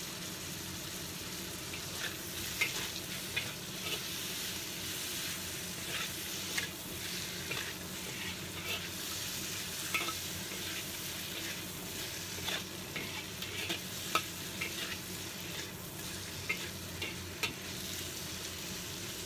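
Stir-frying shrimp, squid and siomay in an oiled wok: a steady sizzle of hot oil, with irregular knocks and scrapes of the stirring utensil against the wok starting about two seconds in.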